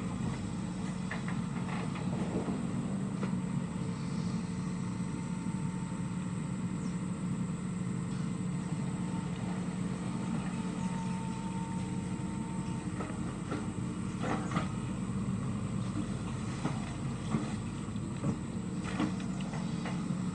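Sany SY75 long-arm excavator's diesel engine running steadily, with a few knocks and clanks about two-thirds of the way through and near the end.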